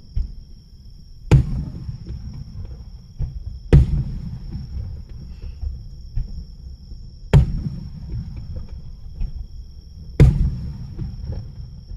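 Display fireworks bursting: four sharp booms two to four seconds apart, each trailing off in a low rumble.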